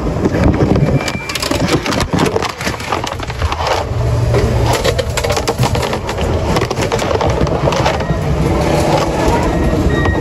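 Handling noise on a phone's microphone as it is carried, covered and rubbed: a dense, continuous rustling and scraping with many small knocks and crackles.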